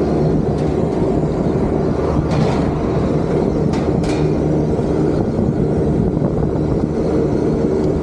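Trane 25-ton rooftop package air-conditioning unit running: a loud, even machine drone with a steady low hum from its condenser fan motors and compressors.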